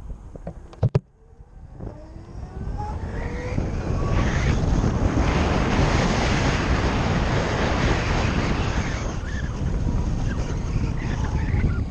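Zero FX electric motorcycle's motor whining, rising in pitch as it accelerates, after a couple of sharp clicks about a second in. Wind then rushes over the microphone and drowns it out as speed builds, easing off after about nine seconds.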